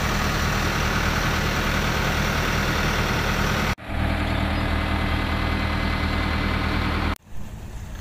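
Case 580N backhoe loader's diesel engine idling steadily. The sound cuts off abruptly about four seconds in, then again about seven seconds in, and the last part is quieter.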